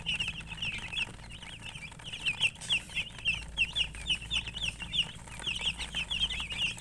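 Chickens chirping: a rapid, continuous stream of short high peeps, several a second and overlapping, over a low steady hum.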